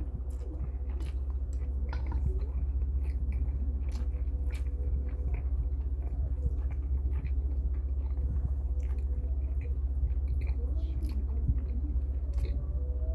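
A person chewing a mouthful of bibimmyeon noodles, with scattered small mouth and chopstick clicks, over a steady low hum.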